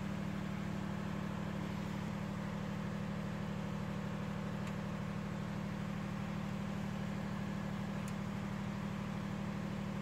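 An engine running steadily at idle: an even, low hum with a rapid flutter.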